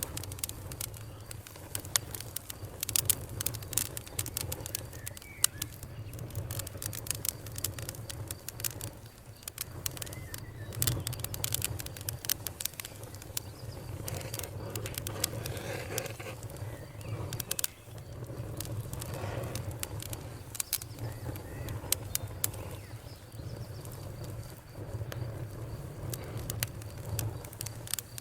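Fire crackling: irregular sharp pops and snaps, many a second, over a steady low rumble.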